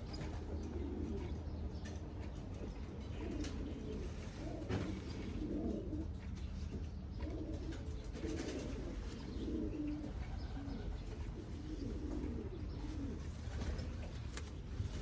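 Pigeons cooing repeatedly, several overlapping low coos through the whole stretch, over a steady low hum.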